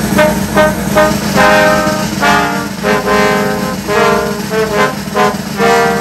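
Trombone ensemble playing live: a few short punched chords, then longer chords, ending on a held chord, with a steady low hum underneath.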